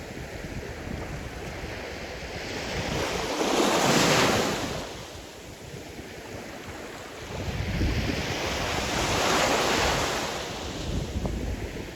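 Sea surf breaking on a shore: two waves swell and wash in, the first peaking about four seconds in and the second, longer one a few seconds later. A gusty low rumble of wind on the microphone runs underneath.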